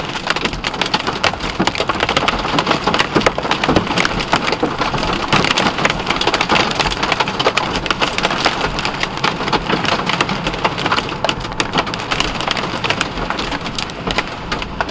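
Rain and hail pelting the vehicle's roof and windshield: a dense, steady patter of countless small hits.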